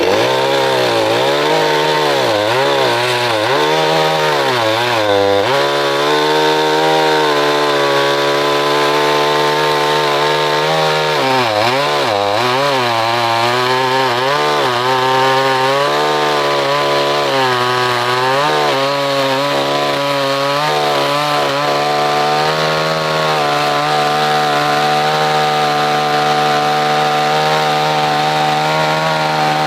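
Petrol chainsaw cutting wood, its engine speed dipping and recovering again and again as the chain bites into the wood. For the last several seconds it runs at a steady pitch.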